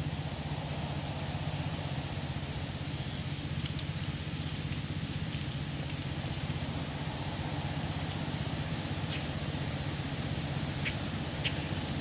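A steady low hum, with faint short bird chirps scattered over it.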